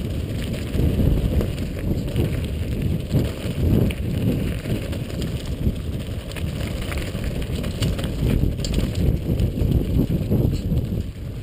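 Mountain bike riding fast down a dry dirt trail, recorded on the bike or rider: a steady low rumble of tyres on dirt and wind on the microphone, with frequent rattles and clicks from the bike over stones.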